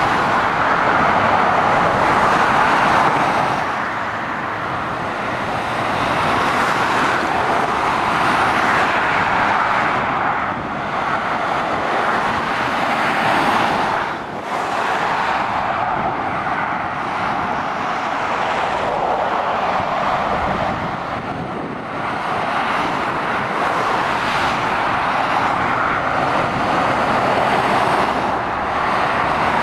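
Road traffic going by at speed: lorries and cars passing close below, a steady rush of tyre and engine noise that swells and eases as each vehicle passes.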